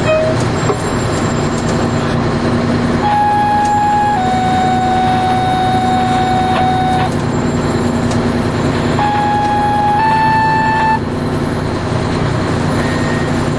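Heavy truck engine running steadily. A steady whine with overtones comes in twice, shifting pitch in steps.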